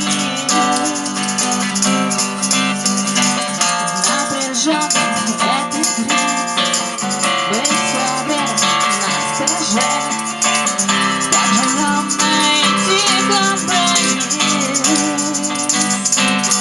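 Acoustic rock band playing an instrumental passage: strummed acoustic guitar with a shaker rattling along in rhythm.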